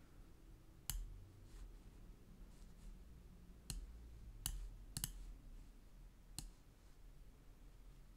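Computer mouse buttons clicking, about five separate faint clicks spread a second or more apart, as on-screen shapes are selected and dragged.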